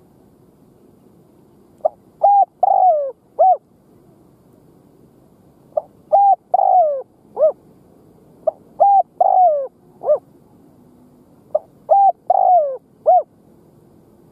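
Spotted dove giving its cooing song four times, a phrase about every three to four seconds. Each phrase is a quick faint note, a coo, a longer falling coo and a final short coo.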